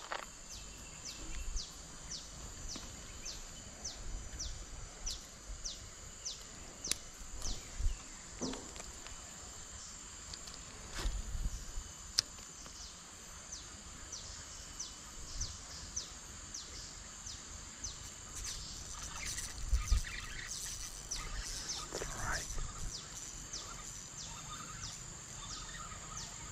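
Tropical streamside ambience: insects keep up a steady high buzz while a short, falling chirp repeats about twice a second, stopping about two-thirds of the way in. A few low bumps and rustles come and go.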